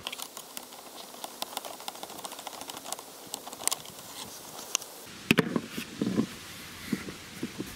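Small clicks and taps of hands and a screwdriver working a hose clamp and handling a plastic air-intake hose, with a couple of louder knocks a little after five seconds in.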